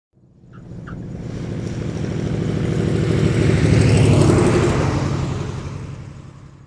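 Propeller-driven engine passing by, building from nothing to its loudest about four seconds in, then fading away.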